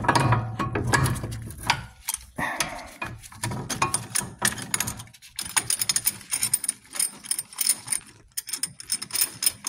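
Steel C-clamp being unscrewed and pulled off a brake caliper: irregular metallic clicking and rattling, denser in the second half.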